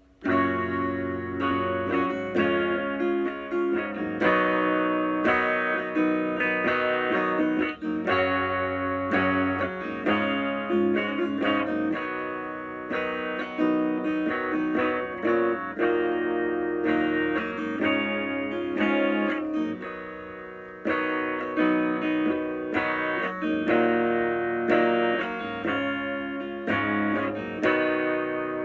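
Electric guitar played through the clean green channel of an EVH 5150III LBX-S 15-watt lunchbox tube amp with no pedals: chords picked and strummed one after another, each ringing out and decaying, the last one fading near the end.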